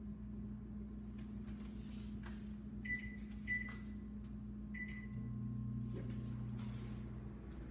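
Oven control-panel keypad beeping three times, short electronic beeps as its buttons are pressed, over a steady low hum. A deeper hum swells in about five seconds in.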